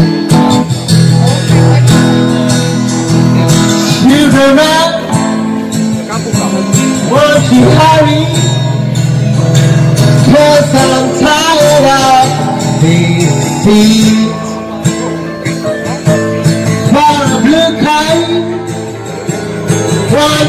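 Live acoustic band music: a man singing over strummed acoustic guitar and a Korg keyboard, with a relaxed country-blues feel.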